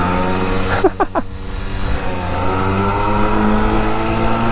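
Simson moped's two-stroke single-cylinder engine running under way; its pitch dips about two seconds in and then rises steadily as it accelerates.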